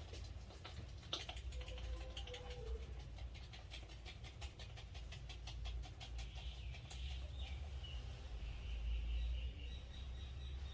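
Quick, even taps of a barber's hands during a head massage, about five a second, stopping about six seconds in. Birds chirp faintly over a low steady rumble.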